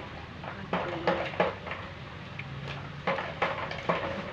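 Thin plastic bag crinkling in the hands, in short irregular crackles.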